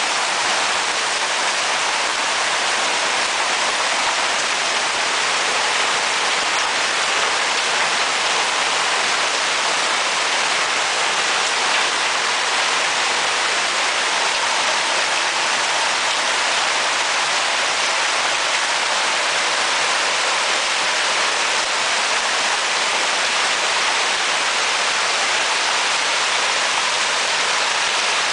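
Heavy hail falling with rain: a dense, steady rush of hailstones striking the ground and roofs.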